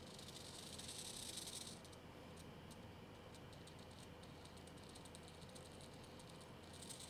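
Small hobby servo motor faintly whirring as it moves, then a long run of rapid, irregular faint clicks and ticks as it steps along behind the turned knob.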